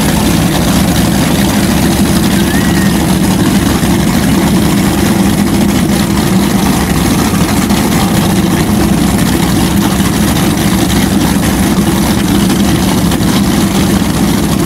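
Baja 34 offshore race boat's engines idling in gear at low speed, a steady deep rumble that holds even throughout.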